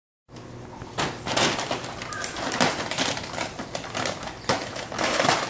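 A brown paper bag rustling and crinkling in irregular bursts as a cat pushes its way inside it.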